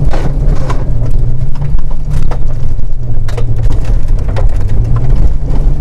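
Volvo 940 rally car's engine running hard, heard from inside the cabin, with gravel and small stones clicking against the underbody several times as it drives on a loose gravel road.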